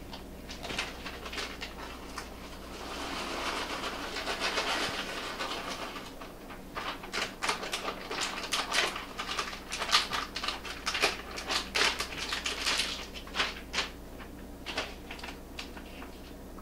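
Corn being tipped into a pot of simmering soup, a soft rush of a few seconds, then a spoon stirring it in and knocking against the side of the metal pot in a quick, irregular run of clicks for about seven seconds.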